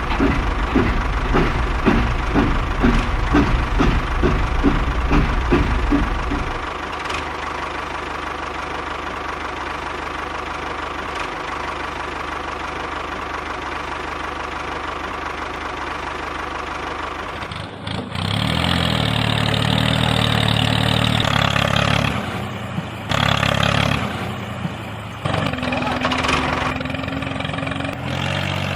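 Engine sound of a mini construction vehicle. It starts as a rhythmic chugging at about three beats a second, settles into a steady running hum, then about eighteen seconds in a louder, higher engine sound starts and stops several times.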